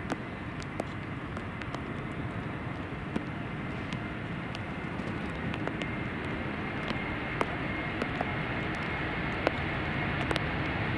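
Antonov An-124's four D-18T turbofans running at high power, a steady jet noise with a faint whine that grows gradually louder as the aircraft comes nearer. A few sharp clicks are scattered over it.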